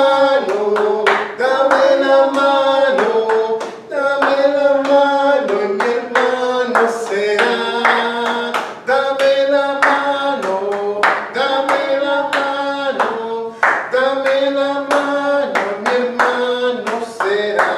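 Congregation singing a worship chorus, with hand claps keeping the beat about twice a second.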